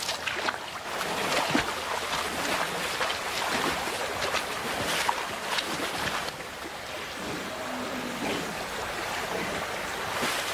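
River water running over a stony bed, with irregular splashes as a European bison bull wades through the shallows.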